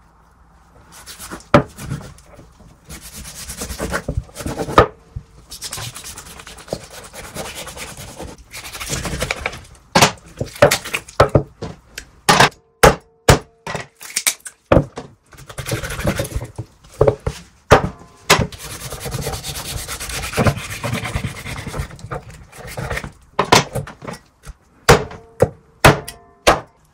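Large kitchen knife scraping and trimming skin and fat from cow feet on a wooden cutting board, broken by many irregular sharp knocks of the blade striking the board.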